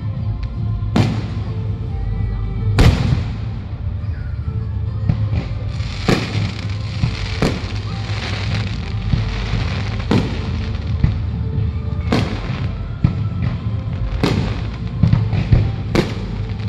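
Aerial fireworks bursting: about eight sharp bangs a second or two apart, with a stretch of crackling in the middle, over music playing from loudspeakers.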